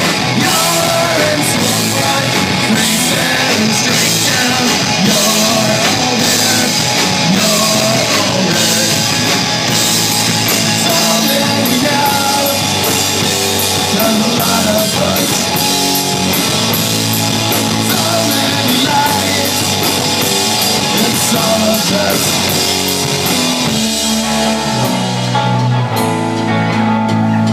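A live punk-leaning indie rock band playing loud: distorted electric guitar, bass and drum kit, with a sung lead vocal. Near the end the drums and cymbals drop out and the guitar and bass ring on.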